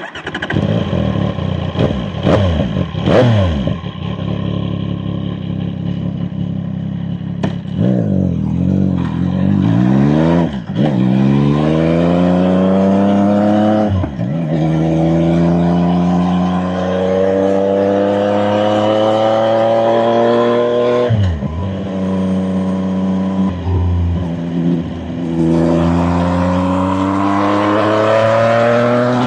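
CFMOTO 675NK's three-cylinder engine pulling through the gears, its pitch climbing in long rises and dropping briefly at each shift. There are a few quick throttle blips near the start.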